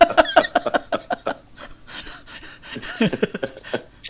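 Breathy laughter and murmured voices from people on a video call, in two short spells.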